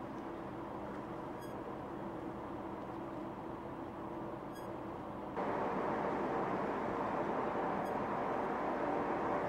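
Research ship RRS James Clark Ross under way through sea ice: a steady hum of the ship's machinery under a constant hiss. About five seconds in it changes abruptly to a louder, steady rush of water and wind along the hull.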